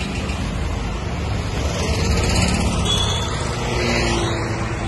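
Road traffic: a steady rumble of passing vehicles' engines and tyres, swelling slightly about two seconds in and again near the end.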